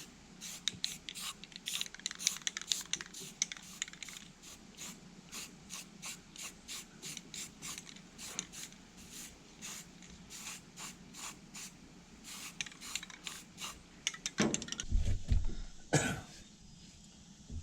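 Quick repeated scratchy strokes, a few per second, of hand-scraping or brushing on a part, then a few louder knocks and thumps of parts being handled near the end.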